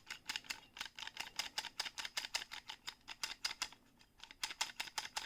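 Rapid plastic clicking, about six clicks a second, from a small Happy Meal action figurine's button-worked arm mechanism being worked over and over. It pauses briefly near the end, then starts again.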